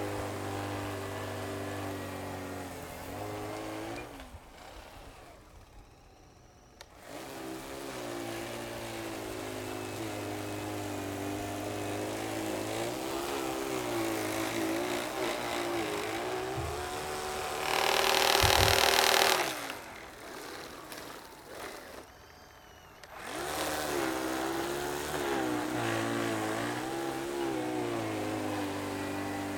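Prototype single-stage R/C snow blower running as it clears snow: its motor and auger hum with a pitch that rises and falls, easing off twice. Around two-thirds through comes a loud rushing burst lasting about a second and a half.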